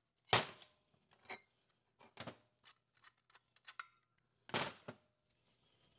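Clutch plates of a 4R70W automatic transmission's clutch pack clinking against each other and the drum as the pack is pulled out of the drum. There are several separate sharp metallic clinks, the loudest just after the start, just past two seconds in, and about four and a half seconds in.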